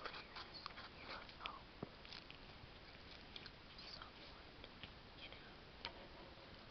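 Faint scratchy rustling of a felt-tip marker and paper, with scattered soft clicks and taps over a steady hiss.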